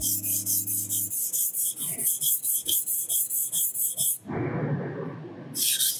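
Kitchen knife blade stroked rapidly back and forth on the fine 1000-grit side of a water whetstone, a light rasping scrape at about three to four strokes a second. These are light-pressure refining passes on the finer grit. About four seconds in the strokes break for a second of duller, lower noise, then resume.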